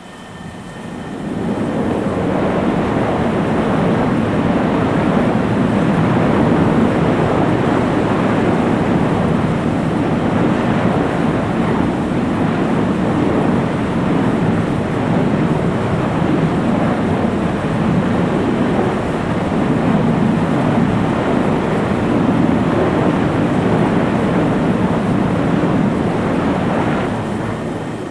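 A loud, steady, rumbling engine roar with no clear whine, fading in over about two seconds and fading out near the end.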